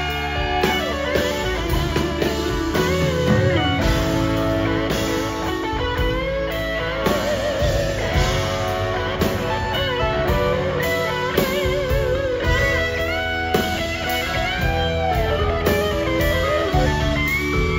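Live rock band playing an instrumental passage, an electric guitar leading with bent notes that waver in pitch, over bass and drums.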